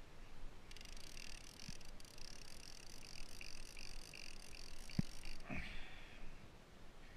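Fishing reel's drag screaming as a blue shark runs and takes line against it, starting about a second in and cutting off sharply after about four and a half seconds, with a single knock just before it stops.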